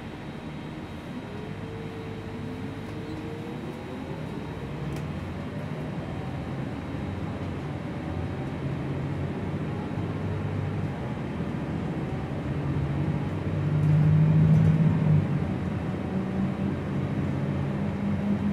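Gillig low-floor city bus heard from inside, running and gathering speed, with a whine that rises in pitch as it accelerates. The drive noise grows steadily louder, with a louder low rumble about fourteen seconds in.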